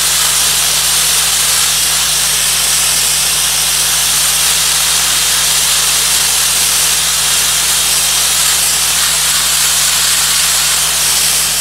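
Wet abrasive (Dustless) media-blaster nozzle spraying continuously onto asphalt: a loud, steady hiss with a low steady hum underneath.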